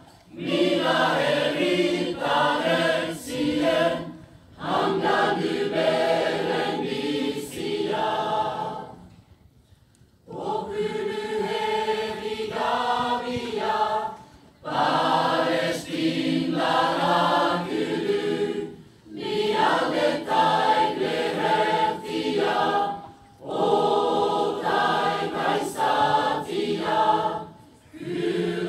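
Mixed choir of men and women singing a Basque song together, in phrases of about four seconds with short breath pauses between them; a longer pause comes about nine seconds in.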